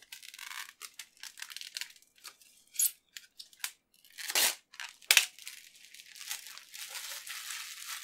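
Protective plastic film being peeled off the tempered-glass side panel of an NZXT H510 PC case: crackling and rustling with a few louder rips about 3, 4.5 and 5 seconds in. Near the end the peeled film is crumpled in the hand.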